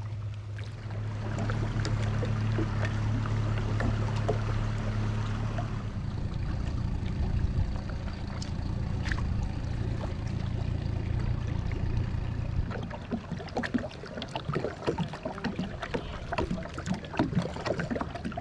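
Kayak paddling with water splashing and dripping off the paddle blades. For the first two-thirds a low, steady boat-motor hum is louder than the paddling, then it dies away, leaving clusters of small splashes and drips.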